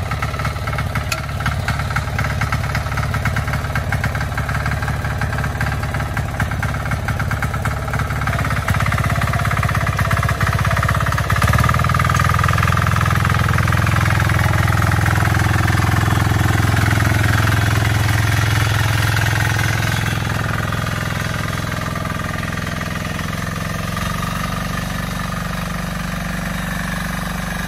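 Trâu Vàng mini tiller's single-cylinder 173F diesel engine running under load while its rotor churns wet paddy mud. The engine grows louder about ten seconds in and eases off again after about twenty seconds.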